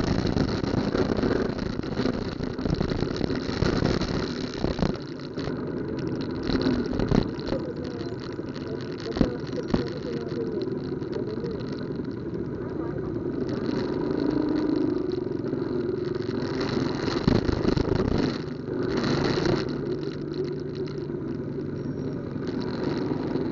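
Street traffic in a slow jam: motorcycle and car engines idling and pulling away close by, with a few sharp knocks, and a steady engine hum in the last few seconds.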